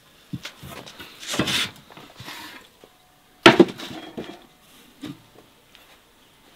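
Kitchen clatter of cookware and utensils on a wooden surface: a few light knocks, a short scraping rustle about a second and a half in, and one loud knock about three and a half seconds in.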